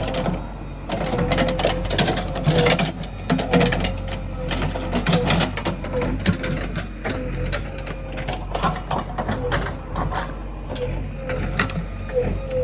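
Geared machinery running with a steady, slightly wavering whine under rapid, irregular clicking and clattering.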